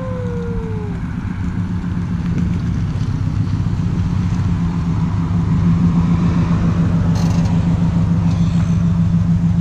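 2019 Subaru WRX STI's turbocharged flat-four engine running at low revs as the car rolls slowly up and stops, a steady low drone that grows louder as it comes close.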